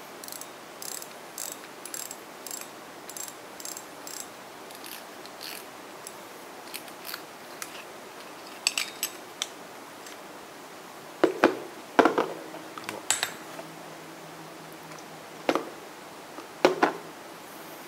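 Daiwa Crosscast 5500 spinning reel being cranked by hand, its gears giving light, even ticks about twice a second. Later come several louder, sharper clicks and knocks as the spool and drag knob are taken off and set down.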